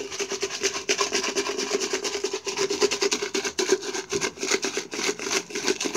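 Can of chips being shaken by hand, the chips rattling inside in a rapid, continuous rasping rattle.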